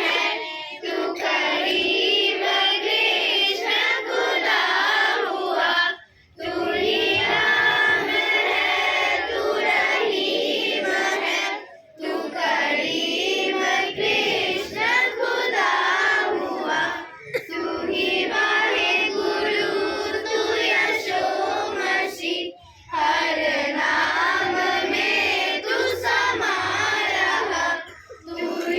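A group of children singing a song together, in sung lines broken by short pauses about every five to six seconds.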